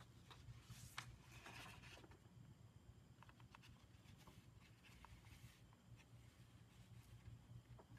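Faint rustling of a sheet of paper being bent into a chute as powdered glass enamel is poured back into a jar, with a soft rustle in the first two seconds, then a few faint ticks.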